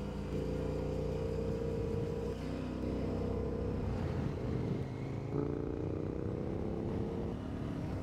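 KTM 1090 Adventure R's V-twin engine running under way on the open road, with a steady note that breaks off a couple of seconds in and picks up again lower about five seconds in as the speed changes. Wind noise rumbles under the engine.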